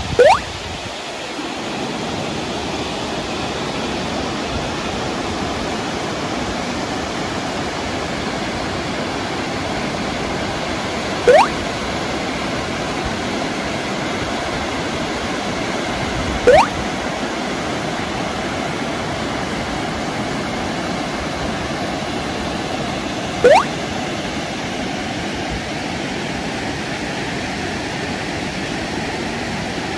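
Waterfall rushing steadily down rock ledges. A short rising chirp cuts through the water noise four times: once at the start, then three more times several seconds apart.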